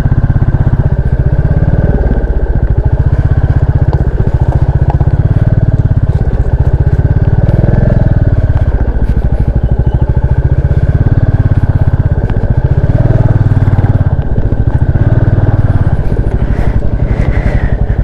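Motorcycle engine running at low speed with steady, close-spaced exhaust pulses, swelling a little about eight seconds in and again around thirteen seconds as the throttle is opened.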